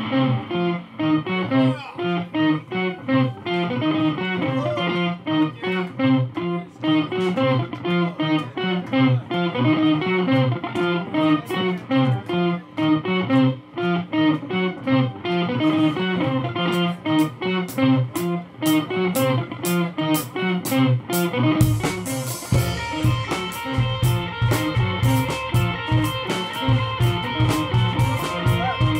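Live rock music: a repeating, picked electric guitar riff that keeps playing as a loop while the player moves to the drum kit. Cymbal hits come in after about sixteen seconds, and the full drum kit with kick drum joins a few seconds later.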